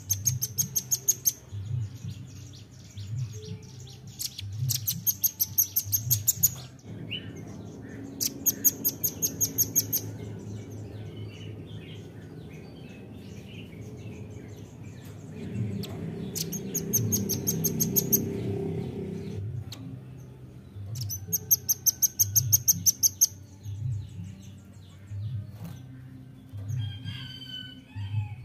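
Velvet-fronted nuthatch calling: five bouts of rapid, high, sharp chips, each bout a fast trill lasting one to two seconds, with pauses of a few seconds between.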